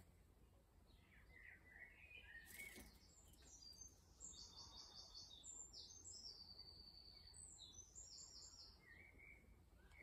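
Garden songbirds singing faintly: a few lower chirps in the first three seconds, then a long run of high, rapidly repeated notes.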